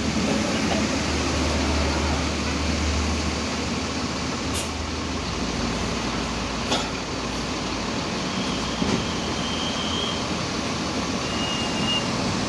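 Large bus running close by with a steady engine and road noise, a deeper hum in the first few seconds, a few short clicks, and two brief faint high tones in the second half.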